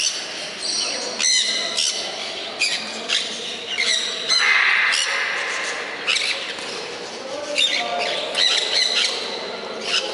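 Mealy amazon parrots squawking and calling again and again, short calls mixed with a few longer, noisier ones, with brief pauses between.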